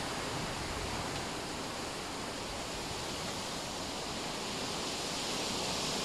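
Steady rushing of wind through the surrounding bushes and trees.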